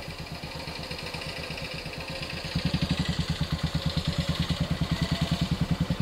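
Motorcycle engine running at low road speed with an even, rapid pulsing beat, growing louder about two and a half seconds in.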